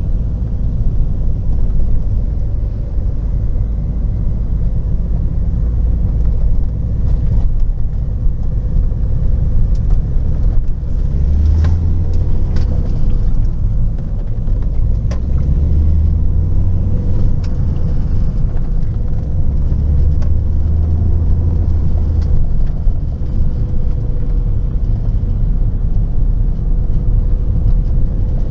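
Renault Megane II 1.9 dCi four-cylinder turbodiesel car on the move during a road test after its no-start repair: a steady low rumble of engine and road noise, with a few sharp clicks about halfway through.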